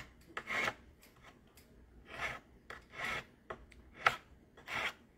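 Flat hand file rasping across a copper ring at a wooden bench pin, in about six separate short strokes, a little under a second apart.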